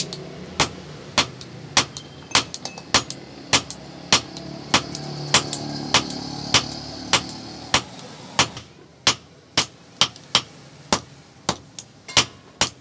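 Hand hammer striking a red-hot iron bar held in tongs on a steel anvil, a steady beat of about one and a half blows a second with light ticks between, quickening slightly near the end.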